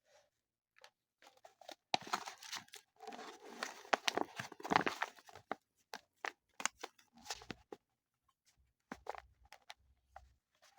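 Irregular rustling, scraping and light clicks of dry baking ingredients being handled in a bowl, with a crinkling packet, densest from about two to five seconds in.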